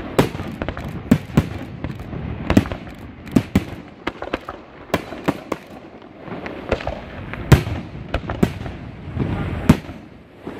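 Aerial fireworks shells bursting in quick, irregular succession: sharp bangs several times a second over a continuous crackle, with one especially loud bang about three quarters of the way through.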